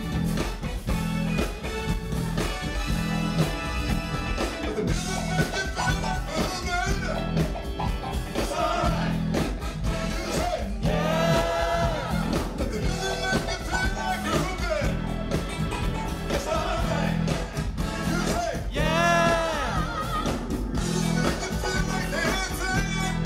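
Live funk band playing, with a deep electric bass line under a sung lead vocal that slides in pitch.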